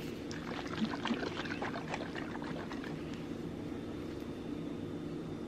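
Sauce shaken and poured out of a glass bottle, with small faint clicks and dribbles over a steady low kitchen hum.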